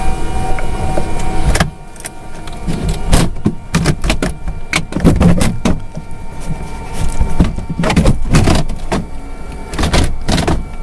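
Steady whine from an Antonov An-26's turboprop engines that cuts off abruptly about a second and a half in. It gives way to irregular gusts of wind buffeting an outside microphone while the engines run down after shutdown.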